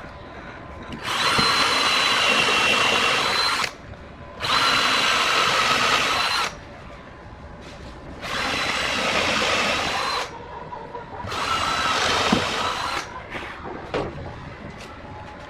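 Power drill running in four bursts of about two seconds each with a steady whine, stopping briefly between bursts.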